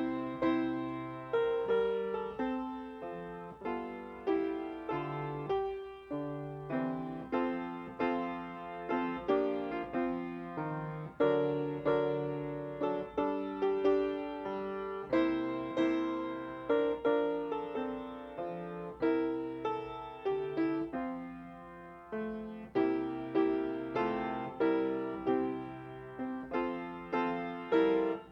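Solo piano playing a slow chordal piece, notes struck and left to ring and fade, chords changing about once a second: a prelude before worship.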